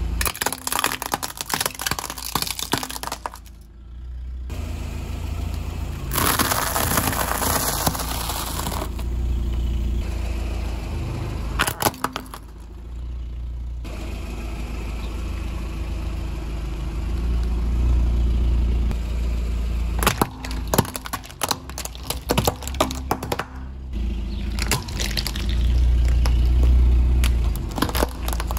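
Car engine running low and slow while the tyres roll over and crush objects, giving clusters of sharp cracking and crunching. There is a few-second stretch of rushing hiss partway through.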